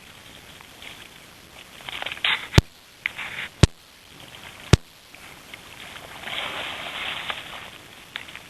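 Water sloshing and splashing in flooded marsh grass, coming and going in patches, cut by three sharp cracks about a second apart.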